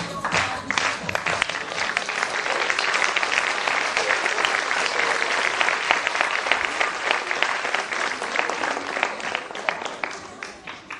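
Audience applauding, a dense clapping that dies away near the end.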